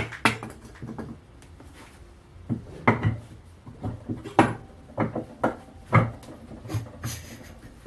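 Irregular knocks and clacks of metal suspension parts and tools being handled while an air-suspension strut is put back together, about ten separate hits, with a brief hiss near the end.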